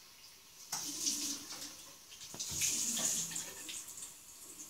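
Water splashing from cupped hands onto the face over a bathroom washbasin, in two bouts: about a second in and again just past halfway.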